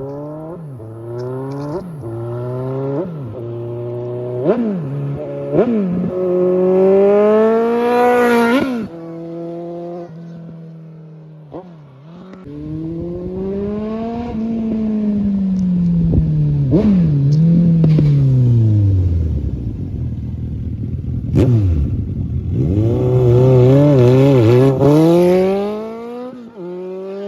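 Suzuki Bandit 1250's inline-four engine at full throttle, pulling up through the gears, its pitch climbing and dropping at each upshift. It eases off, revs up again and winds down to a low rumble. A sharp click comes about two-thirds of the way in, then the engine pulls hard once more and backs off near the end.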